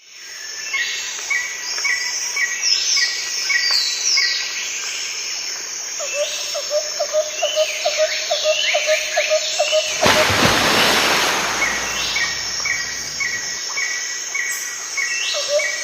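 Several birds chirping and singing at once, with short repeated notes and rising calls overlapping. About ten seconds in, a rushing noise swells up for a couple of seconds over them.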